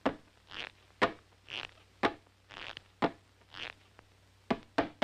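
Cartoon Pluto sniffing and snuffling in a steady rhythm: a short sharp click followed by a breathy hiss, about once a second.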